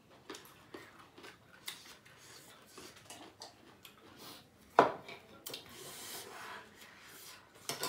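Chopsticks clicking and scraping against a bowl of noodles, with one sharp knock just before halfway through as the bowl is set down on the table.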